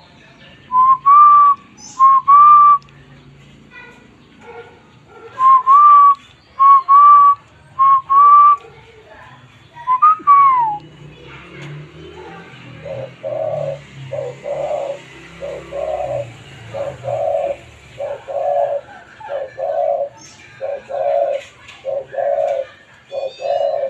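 Loud, clear whistled notes, each rising slightly and mostly in pairs, over the first ten seconds. About halfway through, a caged spotted dove starts cooing in a long run of short, evenly spaced low coos.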